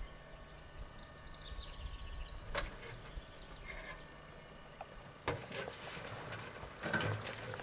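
Quiet outdoor background with a few faint high chirps and two or three light knocks, the clearest about two and a half and five seconds in.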